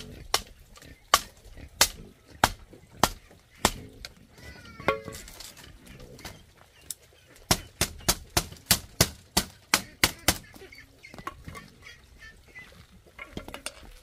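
Machete blade knocking against bamboo fence slats: sharp knocks about every half second for the first few seconds, then a quicker run of about three a second in the middle. A short poultry call comes about five seconds in.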